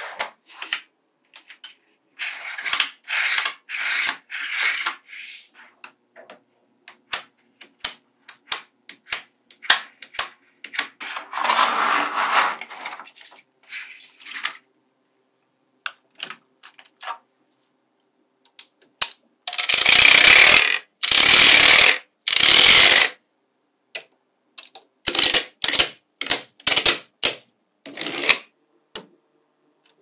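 Small neodymium magnetic balls clicking and clattering as they snap together, in scattered sharp clicks and quick runs of them. About two-thirds through come three longer, louder rattles close together.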